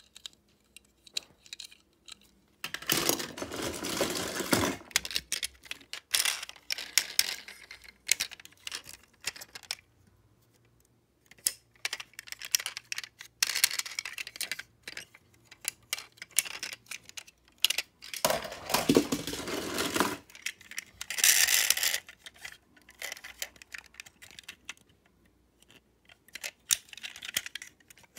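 Die-cast toy cars being handled close to the microphone: scattered small clicks and taps of metal and plastic, with longer bouts of rubbing and rattling about three seconds in and again around eighteen to twenty-two seconds in.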